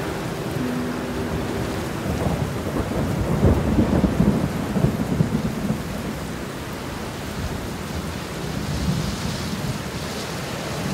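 Steady heavy rain, with a low roll of thunder that swells about two seconds in and dies away by about six seconds.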